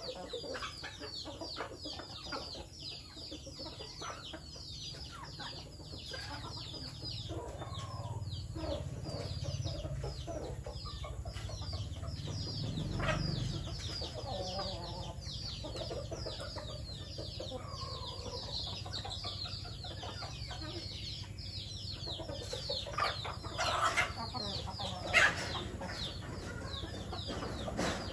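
A flock of chickens clucking as they peck at food, over a steady run of high, falling chirps several times a second. A few louder calls come near the middle and toward the end.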